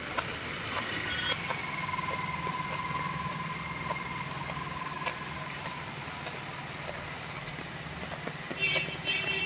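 Heavy rain falling on a flooded paved lot, with a vehicle engine idling underneath. A long steady whine runs through the first half, and brief chirps come near the end.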